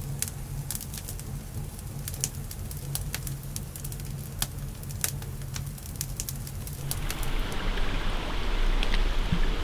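Wood campfire crackling, with irregular sharp pops and snaps over a low steady rumble. About seven seconds in, a louder rushing noise takes over and builds.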